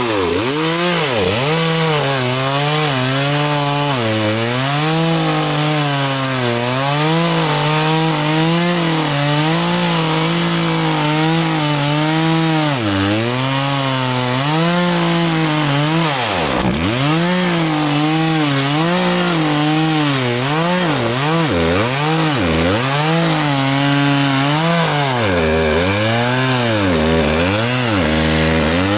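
Gas chainsaw cutting into a felled pine log, its engine pitch sagging again and again as the chain bites into the wood and picking back up between cuts. About halfway through the engine drops sharply once, then climbs back.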